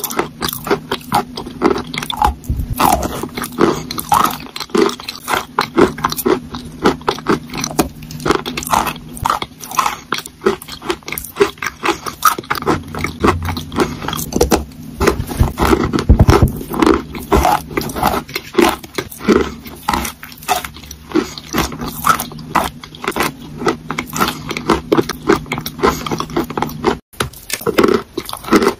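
Close-miked chewing of a chalk block spread with a wet paste: dense crisp crunches, crackles and scraping grinds between the teeth, over a faint steady low hum. The sound drops out briefly near the end.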